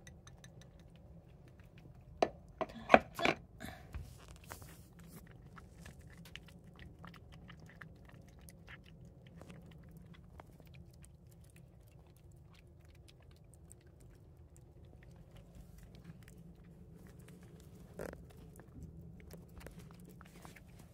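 A cat chewing and crunching its food close to the microphone. A few loud crunches come about two to three seconds in, followed by fainter, irregular chewing clicks.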